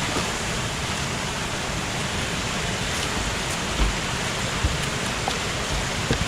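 Steady rush of water pouring over a small waterfall at a weir swollen by heavy rain, with a couple of brief dull knocks about halfway through.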